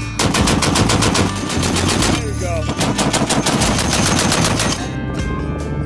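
M2A1 .50-calibre heavy machine gun firing long bursts at about nine or ten rounds a second, with two brief breaks; it stops about three-quarters of the way through.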